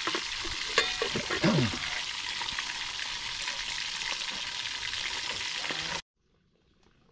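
Whole tilapia frying in hot oil in a shallow metal pan: a steady, dense sizzle with a few brief knocks in the first two seconds. The sizzle cuts off abruptly about six seconds in.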